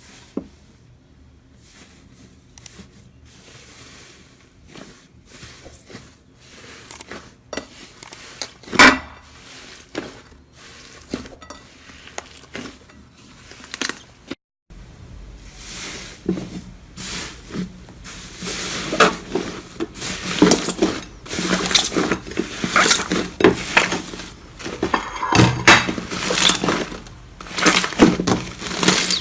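Close-up ASMR handling sounds: scattered clicks and taps with one sharp knock about nine seconds in, then after a short break, dense crackling and crunching.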